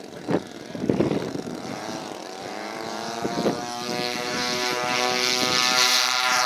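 Twin propeller engines of a large radio-controlled Douglas C-47 Dakota model opening up for its take-off run. The engine note grows steadily louder and steadier as the model lifts off near the end. A few brief sharp knocks come in the first seconds.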